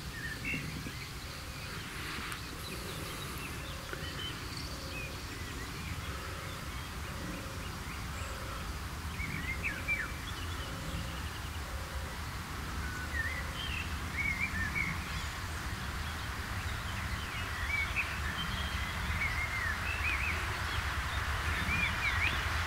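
FS 741.120 steam locomotive approaching, a low rumble that grows louder toward the end, with birds chirping over it.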